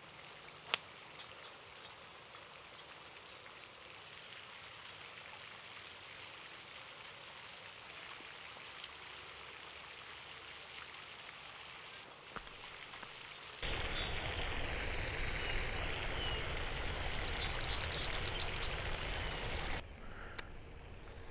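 Steady outdoor hiss like spraying or falling water, with a single sharp click under a second in. For about six seconds in the middle it turns into a louder, fuller rush with a low rumble, with birds chirping and trilling over it, then drops off suddenly.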